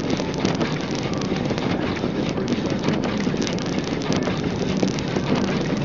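Front-wheel-drive car driving on snow-covered roads, heard from inside the cabin: a steady mix of engine, tyre and road noise.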